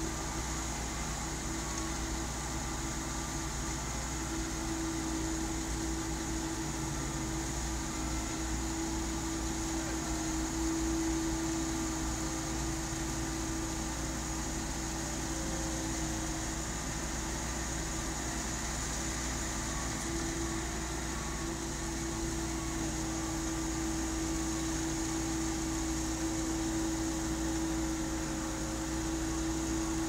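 Concrete-pouring machinery running steadily at a precast bed: an even mechanical drone with a constant hum tone.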